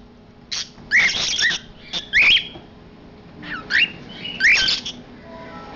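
Cockatiel calling in about five short bursts of harsh squawks and chirps, some sweeping quickly up and down in pitch.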